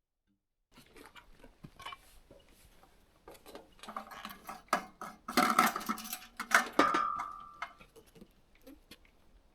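A run of irregular knocks and clanks, loudest in the middle, one of them ringing briefly with a metallic tone near the end.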